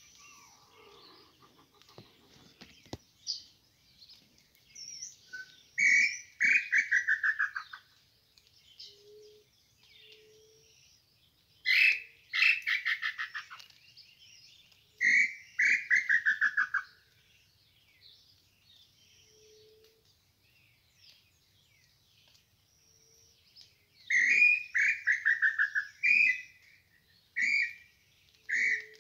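Tataupa tinamou (lambu pé-roxo) calling: repeated quick trills of notes that slide downward in pitch, in bouts about 6, 12 and 15 seconds in and again from about 24 seconds to the end.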